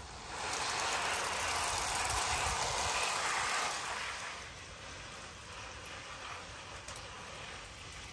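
Water from a garden hose spray nozzle showering onto a basket of fresh grape leaves: a steady hiss of spray, louder in the first half and softer after about four seconds in.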